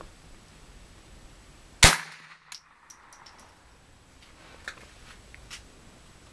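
A single rifle shot, loud and sharp, about two seconds in, followed by a few faint clicks and pops.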